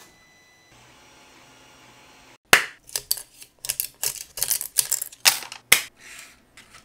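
Sharp, irregular clicks and clacks of hard plastic: 3D-printed letters being pried off a 3D printer's print bed with a plastic scraper and set down on a wooden board. It starts about two and a half seconds in, after a faint hum.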